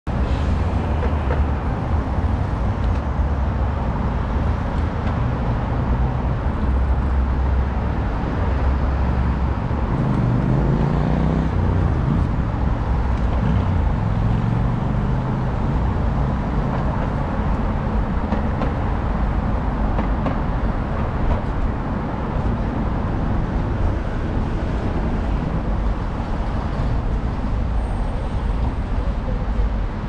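Steady city road traffic: cars and buses passing, a continuous low rumble. About ten seconds in, one engine rises in pitch.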